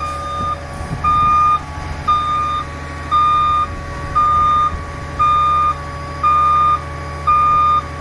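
A truck's reversing alarm beeping about once a second, each beep about half a second long, over the steady drone of diesel engines from a concrete mixer truck and concrete pump.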